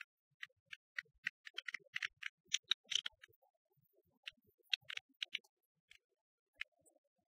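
Sparse, irregular sharp clicks, thickest about two to three seconds in and thinning out after that.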